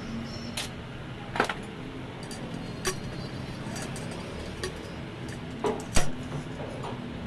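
Scattered metal clinks and knocks from a car shock absorber's steel tube and piston rod being handled at a bench vise. The loudest knock comes about six seconds in, over a steady low hum.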